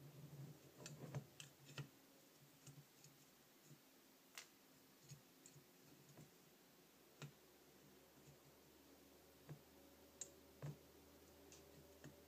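Faint, scattered clicks and taps of small metal carburetor linkage parts and hand tools being handled, over near silence; a quick run of them in the first two seconds, then single ones every second or so.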